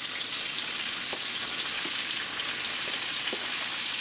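Chopped green capsicum frying in hot oil in a karahi: a steady high sizzling hiss with a few faint pops.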